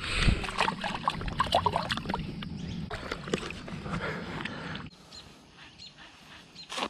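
Rustling and clicking of hands and gear as a caught bass is lowered and let go into a pond. About five seconds in it drops to a quiet outdoor background with faint bird chirps.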